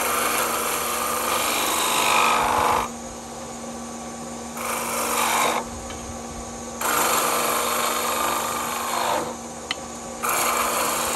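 Shopsmith lathe running with a steady motor hum while a turning chisel, held on its heel, shears the spinning wooden spindle. The cuts come as four loud hissing passes of one to three seconds each, with short pauses between.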